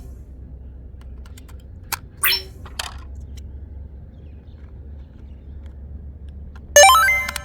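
Small hard objects handled: a few light clicks and knocks, then, near the end, one loud hit that rings on with clear tones and fades within about half a second, like a small hard piece dropped.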